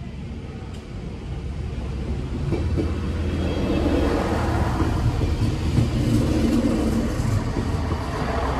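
An Alstom Coradia LINT 41 diesel multiple unit passing over the level crossing: diesel engine rumble and wheel noise on the rails, growing louder about three seconds in as the train crosses.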